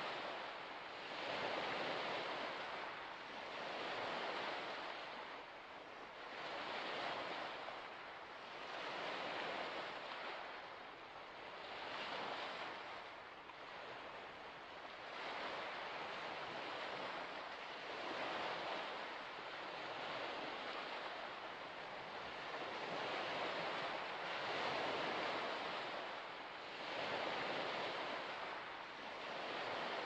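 Small waves washing onto a shore in a steady rhythm, a swell of hissing water every two to three seconds.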